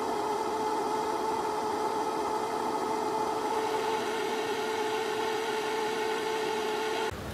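Loudspeaker with paint on its cone playing a steady humming tone, which cuts off sharply about seven seconds in.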